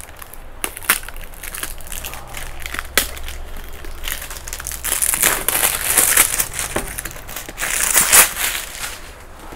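Clear plastic shrink-wrap on a cardboard product box being slit and pulled off, crinkling and crackling, with a few sharp clicks at first and the loudest crinkling in the second half.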